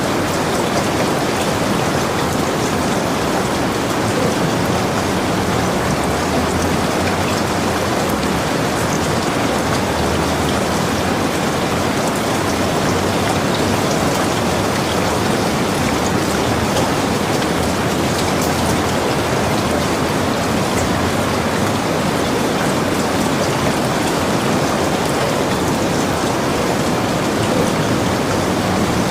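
Steady rain falling: an even hiss with faint ticks of single drops, and no change in level throughout.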